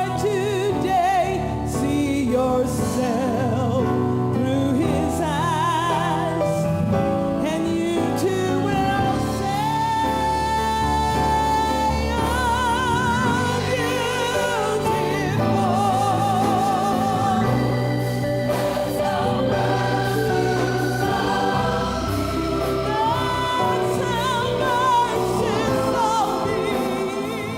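Gospel music with a choir singing over steady accompaniment, fading out at the very end.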